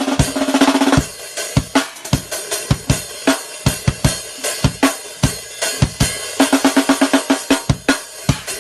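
Makeshift drum kit, with a snare drum, cymbals and a bass drum made from a rusty metal barrel, played in a solo. A fast sextuplet snare roll ends about a second in. Then comes a steady groove of bass drum, snare and cymbal strokes, which grows busier again from about six seconds in.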